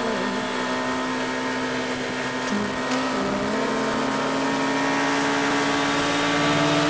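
Motorcycle engine holding steady revs through a long sweeping curve, heard from on the bike with wind rushing past. Its pitch drops just before the end.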